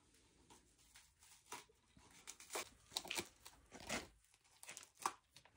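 Faint, scattered clicks and crinkling rustles, a few soft ticks a second apart.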